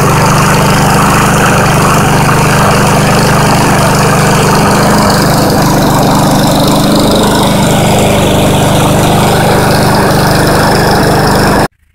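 Husqvarna self-propelled push mower's small four-stroke engine running steadily just after a cold start, having sat unused for months. The sound cuts off suddenly near the end.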